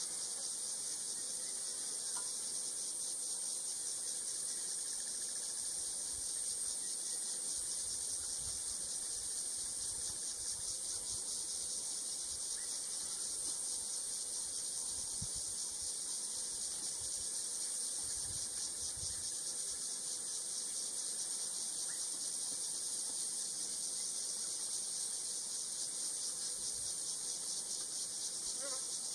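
A steady, shrill insect chorus, high-pitched with a fast even pulse.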